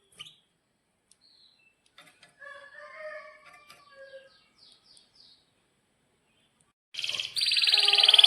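Domestic canary singing: faint scattered chirps and calls, then about seven seconds in a loud, very fast trill of rapidly repeated notes, the long roll prized in trained canary song.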